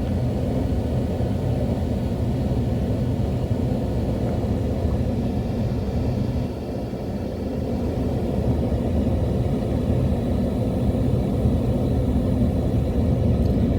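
Car driving, with a steady low rumble of engine and road noise that eases briefly about halfway through.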